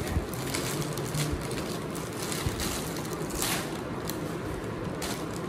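Plastic bag crinkling and rustling as it is cut open with a small blade, with scattered crackles.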